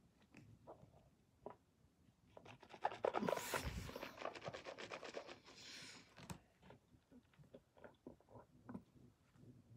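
Faint scratching and rubbing with small scattered clicks. About three seconds in comes a louder rustle with a low thump, lasting about a second, as clothing brushes right against the microphone.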